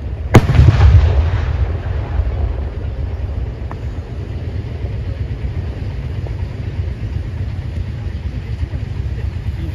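A single loud firecracker bang about a third of a second in, followed by about a second of rumbling echo, over a steady low rumble.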